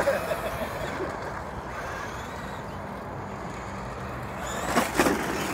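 Steady engine and road noise of a motor vehicle, with a brief sharp, louder sound about five seconds in.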